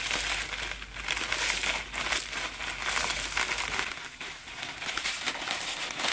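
Plastic packet of thin dry vermicelli crinkling as gloved hands squeeze and work it, with the brittle strands rustling as they spill into a steel wok.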